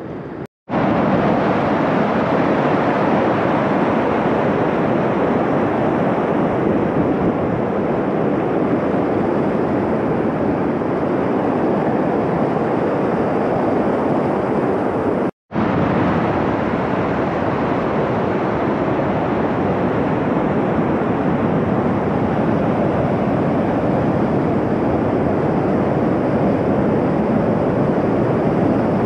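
Glacier-fed mountain stream rushing over rocks in white water, a loud, steady roar close by. The sound cuts out for a split second twice, about half a second in and about halfway through.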